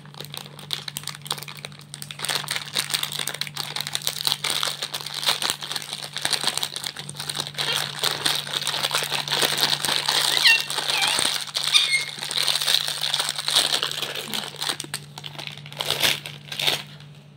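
Plastic candy pouch crinkling as it is torn open and shaken out, with the individually wrapped jelly candies' plastic wrappers rustling as they tip onto a plate. A steady low hum runs underneath.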